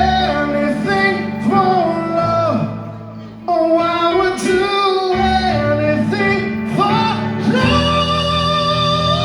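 Live rock band performing a power ballad, with sung vocal lines over the band. The band thins out briefly about three seconds in, then comes back in full.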